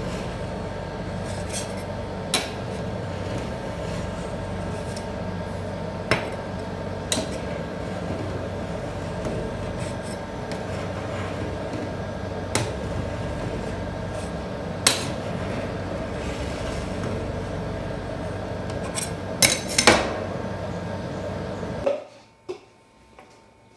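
Metal spatula scraping along a steel ice-cream cold plate as it rolls up strips of frozen ice cream, with sharp metallic clinks of the blade on the plate, a cluster of the loudest about 20 seconds in. A steady machine hum underlies it and cuts off suddenly about 22 seconds in.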